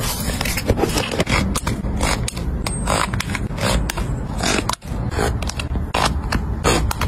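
Hands handling packing items: clear plastic zip-lock bags rustling and crinkling, then small plastic hair clips being clicked and tapped against a paper card. The sound is a dense, uneven run of quick crinkles and clicks, with a brief break about five seconds in.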